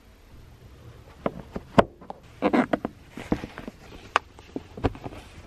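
Handling sounds from a woven blanket being hung over a car's side window and fastened with metal binder clips: irregular clicks, taps and rustles. The sharpest click comes a little under two seconds in.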